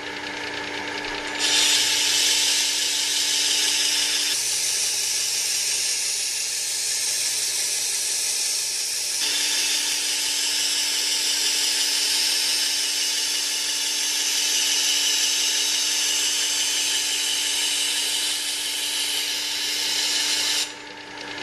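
Work Sharp WS3000 belt sharpener's motor running with a steady hum while a kitchen knife's edge is held against the moving coarse-grit abrasive belt in the angle guide. This makes a loud hissing grind that starts about a second in and stops near the end.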